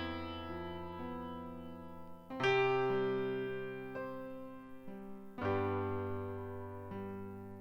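Keyboard music: slow piano-like chords, a new chord struck about every three seconds and left to ring and fade.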